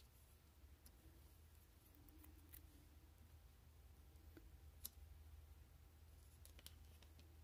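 Near silence: a steady low hum with a few faint, short ticks of fingertips pressing small paper word stickers down onto a paper print.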